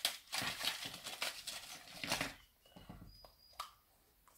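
Crinkly rustling for about two seconds as a chocolate surprise egg is unwrapped and handled, then a few light clicks from handling its yellow plastic toy capsule.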